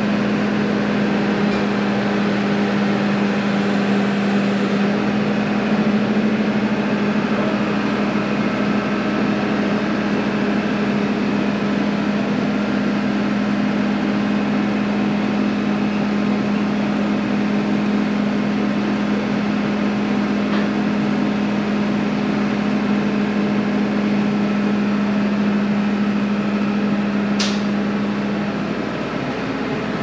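Engine running at a steady speed, a constant loud drone that eases slightly near the end.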